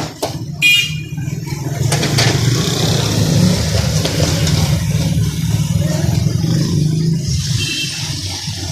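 A steady low engine rumble that swells a couple of seconds in and eases off near the end, with a few sharp clinks and a short ringing tone at the start.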